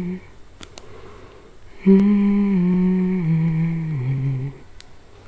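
A woman humming a slow tune: the end of one phrase just as it begins, then, about two seconds in, a phrase of about two and a half seconds that steps down in pitch over four notes.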